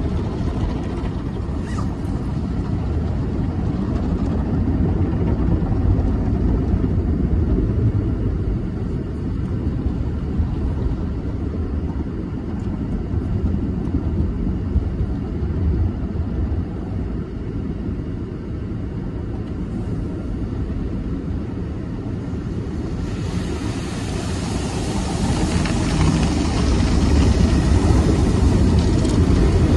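Tunnel car wash heard from inside the car cabin: cloth mitter strips and wrap brushes rubbing and slapping over the windshield and body with running water, as a steady low rumble. About 23 seconds in, a louder hiss joins in and the sound grows louder.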